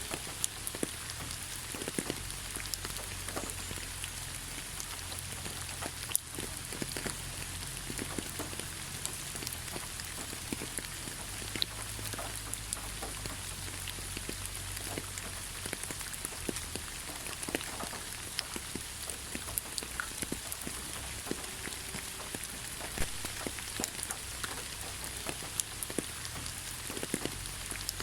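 Rain falling on leaves: a steady hiss with many scattered, irregular drop taps over a low rumble.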